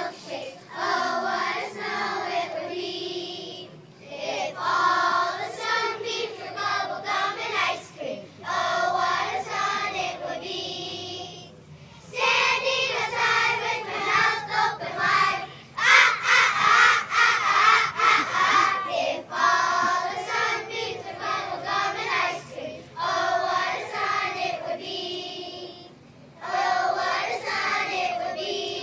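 Children's choir of first and second graders singing, in phrases of a few seconds broken by short pauses.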